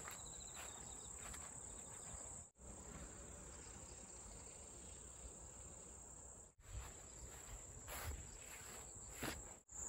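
Grass insects such as crickets chirring, a quiet, steady high trill that cuts out briefly three times, with a few faint knocks near the end.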